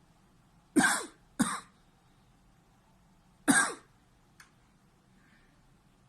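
A man coughing three times: two short coughs in quick succession about a second in, then a third about two seconds later. These are reflex coughs set off by pressure on a schwannoma of the vagus nerve in his neck.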